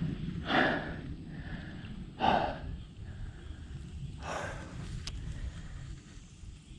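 A person's short, heavy breaths, three of them about two seconds apart, from exertion while fighting a fish on the line, over a steady low rumble.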